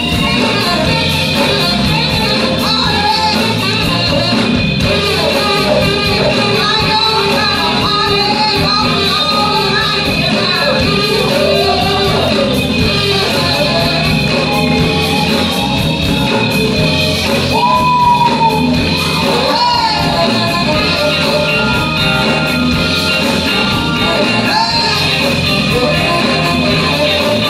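Live soul band playing a full-band groove, with vocals sung and shouted over it.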